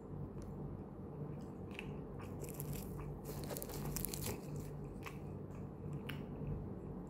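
Chewing, then a styrofoam takeaway food box and plastic bag being handled: a dense patch of crackling and creaking from about two seconds in, followed by a few sharp clicks. A steady low hum runs underneath.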